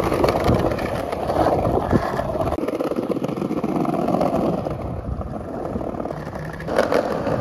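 Skateboard wheels rolling over paving slabs, a steady rolling rumble with a couple of faint knocks early on.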